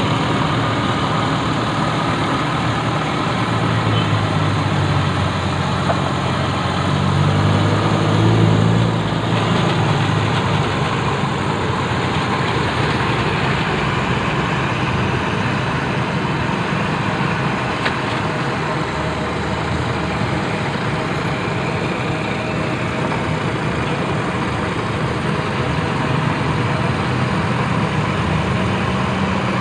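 A motor running steadily with a low hum, swelling slightly a few seconds in.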